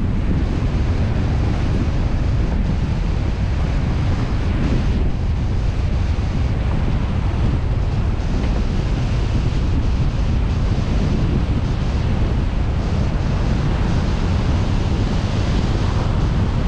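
Steady low rumble of a car driving, road noise mixed with wind buffeting the microphone.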